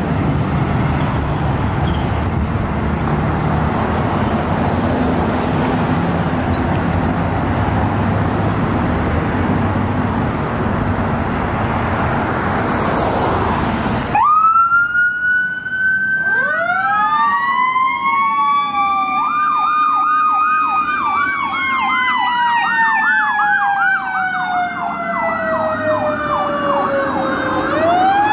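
Steady traffic and engine rumble, then an abrupt change to the fire engine's sirens. An electronic siren wails and switches to a fast yelp, while a Federal Signal Q mechanical siren winds up, slowly coasts down and winds up again near the end.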